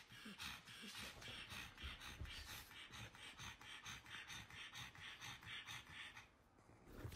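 Pug panting quickly and faintly, a soft rhythmic breath sound at about five breaths a second that stops near the end.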